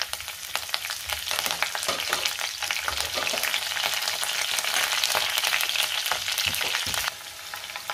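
Mustard seeds, cumin, green chillies, curry leaves and dried red chillies frying in hot oil in a wok for a tempering (tadka): a steady sizzle thick with sharp crackles. It turns quieter about seven seconds in.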